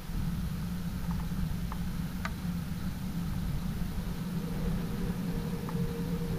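Steady aircraft engine drone heard inside the cabin, a low hum with a few faint ticks.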